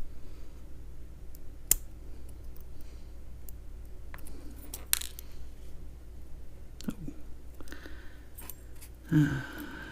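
A few separate sharp metallic clicks and taps of small metal parts of a discus padlock being handled and dropped as it is taken apart. A brief louder sound near the end.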